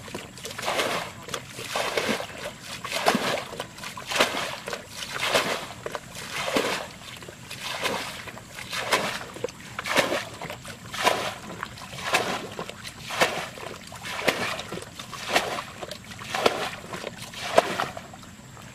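Water being bailed from a shallow ditch with a bucket: each scoop and throw gives a splash, about one a second, and the splashing stops shortly before the end.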